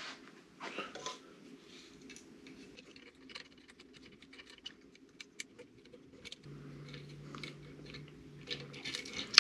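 Faint, scattered metal clicks and ticks as an Allen key is worked on the small bolts of a probe mount on a 3D printer's hotend, over a steady faint hum. A low hum comes in about six and a half seconds in and stops about two seconds later.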